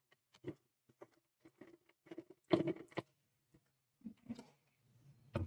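Metal spoon spreading sticky strawberry jam over a soft sponge cake layer: faint, irregular soft scrapes and dabs, the loudest cluster about halfway through.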